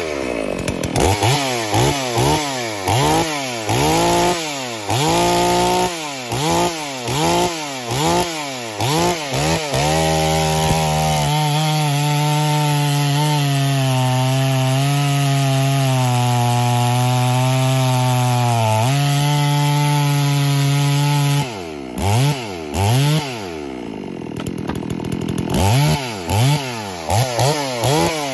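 Neotec NS-872 clone two-stroke chainsaw, a very basic saw with a cheap Chinese carburetor, revved in quick throttle blips, then held at full throttle for about ten seconds while the chain cuts through a log. It falls back near idle and is blipped again several times near the end.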